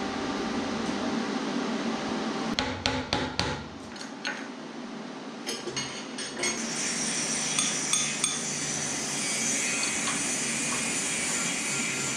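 Metalworking hand tools on steel: a quick run of about five sharp hammer strikes on metal about three seconds in, one more a second later, a few lighter metallic clinks, then a steady high hiss for the rest of the time.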